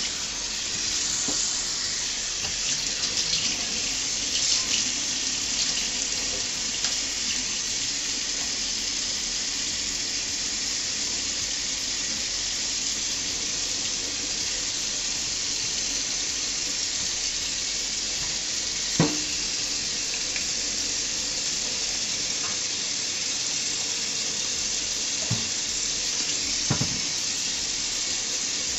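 Kitchen faucet running steadily into a stainless steel sink, splashing over hair being rinsed under the stream. A few short knocks sound about two-thirds of the way through and near the end.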